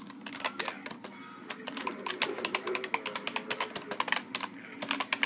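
Fast, irregular typing on a computer keyboard: a quick run of keystroke clicks, with faint music underneath.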